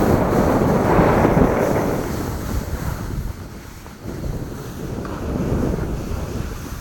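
Wind buffeting the microphone on a fast downhill ski run, with skis hissing over the snow. The rush eases about three seconds in, then picks up again.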